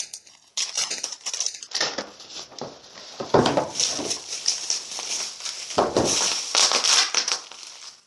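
Plastic bubble wrap and packaging crinkling and rustling as a toy pistol is unwrapped by hand, irregular throughout, with two fuller, louder bursts of handling noise about three and a half and six seconds in.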